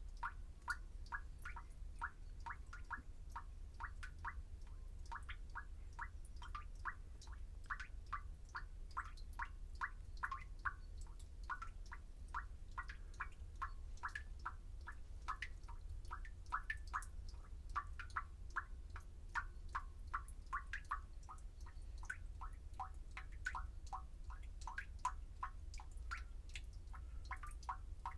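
Water dripping from a drain: a quick, uneven run of short plinking drops, about three or four a second, with natural reverb. A steady low hum lies underneath.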